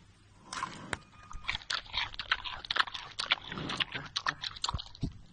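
Giant panda chewing a bamboo shoot: a quick, irregular run of crisp crunches that starts about a second and a half in.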